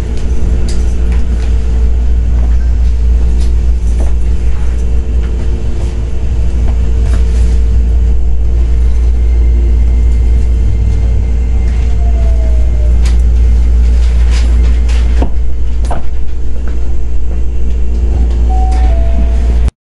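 Running sound of a Hankyu 9300 series electric train (Toyo IGBT-VVVF inverter control): a loud, steady low rumble with a steady motor hum and sharp clicks of the wheels over rail joints. The sound cuts off suddenly just before the end.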